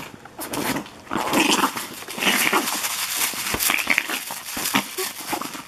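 A small dog vocalizing in play as a man roughhouses with it by hand, with rustling and handling noise.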